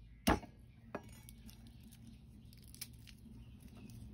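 Kitchenware being handled: a sharp clink or knock shortly after the start, a lighter one about a second in and a faint one near the end, over a low steady hum.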